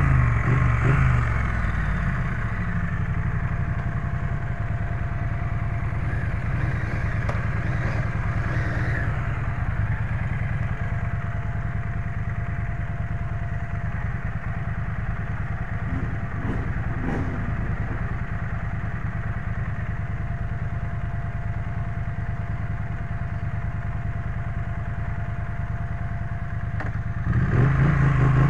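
Triumph Street Twin's 900 cc parallel-twin engine idling steadily, its revs falling back in the first couple of seconds. Near the end it revs up and gets louder as the bike pulls away.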